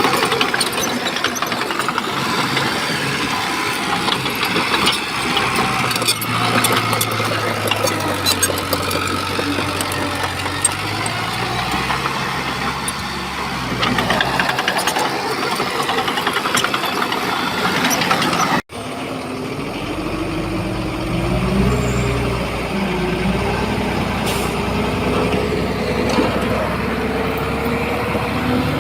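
Shantui bulldozer's diesel engine running under load, with frequent metallic knocks and clanks. The sound breaks off briefly about two-thirds of the way through, and after that the engine note climbs and holds higher.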